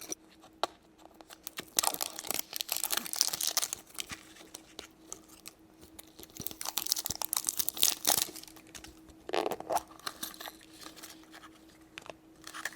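A packaging wrapper being torn open and crinkled by hand, in irregular bursts of crackling with pauses between.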